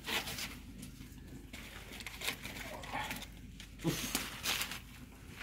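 Plastic bag rustling and crinkling in short bursts as ground garlic is shaken out of it into a pot. There is a brief low sound just before four seconds in.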